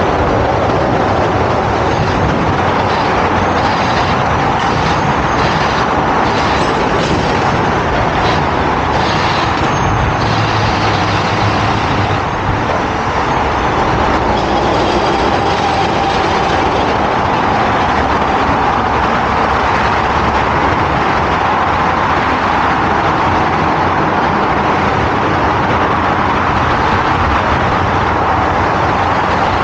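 Steady loud noise of heavy road vehicles running, an even rush with no clear pitch that hardly changes throughout.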